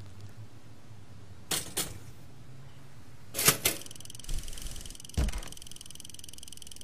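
Pop-up toaster being loaded and switched on: two light clicks, then two sharper clicks as the lever is pressed down, after which the toaster gives a steady high hum. A single low thump comes about five seconds in.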